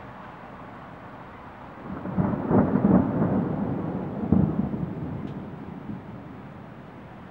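A peal of thunder rolling in about two seconds in, growing loud, surging again about four seconds in, then rumbling away by about six seconds, over a steady background hiss.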